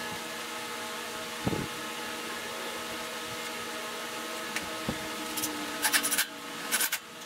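Knocks, then clinks and rattles as parts are handled in a compact tractor's open engine bay, over a steady mechanical hum. A knock comes early, a lighter one a little before the middle, and the clinking clusters in the last couple of seconds.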